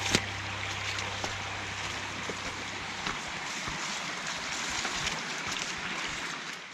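Small forest stream rushing steadily, with a few light clicks of footsteps on the path and a sharper click right at the start.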